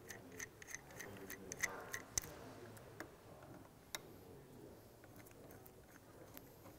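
Light metallic clicks and taps of a gear puller being fitted onto the contact-breaker cam of a small two-stroke moped engine: a quick run of small clicks over the first two seconds, then a couple of single sharp ticks.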